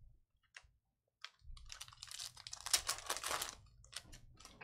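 Foil wrapper of a Panini Donruss football hobby pack crinkling and tearing as it is ripped open and the cards pulled out. It starts about a second and a half in after a few light ticks and is loudest midway.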